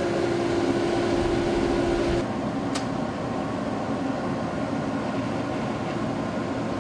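Workshop equipment running with a steady electrical hum and low rumble that cut off about two seconds in, followed by a single sharp click; a steady machine noise runs on underneath.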